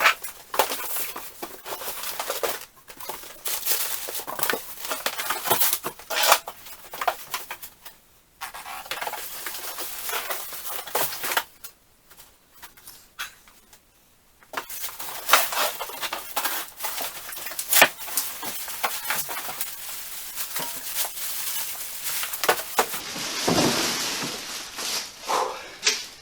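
Unpacking a heavy benchtop lathe from its shipping box: cardboard and packing material rustling and scraping, with irregular clunks and knocks as it is handled, and a heavier thump a couple of seconds before the end.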